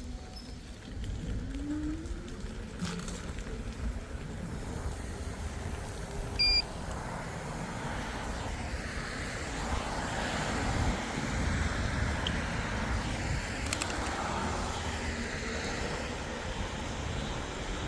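Low road rumble and wind on the microphone as an e-bike is ridden along, with the wind noise building in the second half. A brief high beep sounds about six and a half seconds in.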